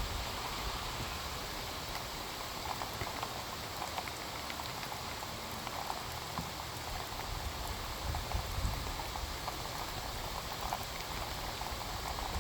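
Heavy rain falling steadily: an even hiss with scattered ticks of drops striking a surface.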